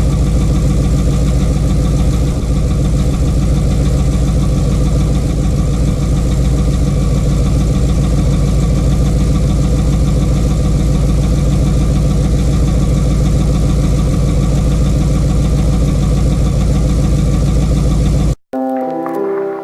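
2009 Pontiac G8 GT's 6.0-litre L76 V8 running steadily, with the tick of a bad lifter and the scrape of a worn camshaft. Near the end the engine sound cuts off and music comes in.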